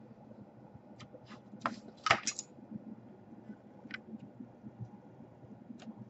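Scattered light clicks and clinks of laptop case parts and a small tool being handled during disassembly, the loudest about two seconds in.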